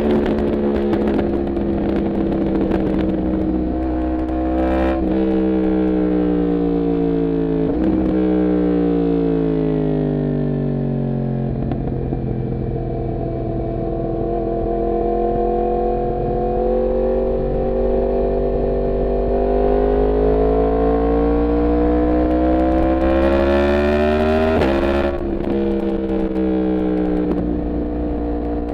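Yamaha MT-10's crossplane inline-four engine running under way. Its note falls steadily over the first dozen seconds, with a couple of breaks, then climbs slowly as the bike pulls, and drops sharply about 25 seconds in.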